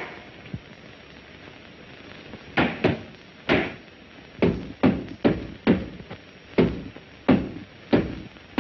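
Heavy knocking on wood: about a dozen loud blows, spaced unevenly, singly or in quick pairs, each with a short low ring after it.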